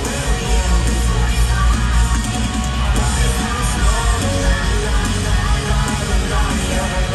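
A live rock band plays a pop-punk song loudly through an arena sound system. The music has heavy bass, electric guitar and vocals.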